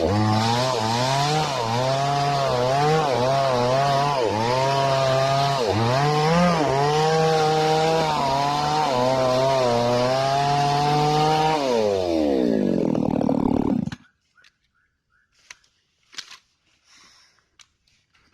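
Falcon mini chainsaw engine warming up, revving up and down repeatedly. About twelve seconds in it winds down in pitch and stops about two seconds later, leaving only a few faint clicks.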